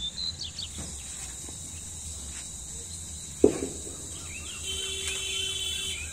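A single sharp chop about halfway through as a knife strikes a pumpkin vine stem, over the steady chirring of insects. A faint held call with a few short calls is heard near the end.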